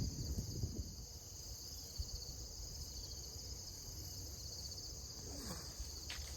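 Insects chirring steadily in a high, finely pulsing drone, with a low rumble in the first second.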